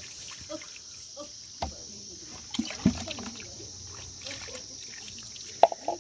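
Water poured from a plastic scoop trickling and splashing over a baby monkey being bathed in a concrete trough, with a few sharp knocks or splashes. A steady high insect chirring runs behind it.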